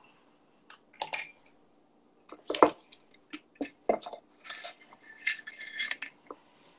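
Metal measuring spoon clinking against a glass sugar jar and a mug as sugar is scooped and tipped in. There are a few separate sharp clinks, then a busier run of clinking and scraping near the end.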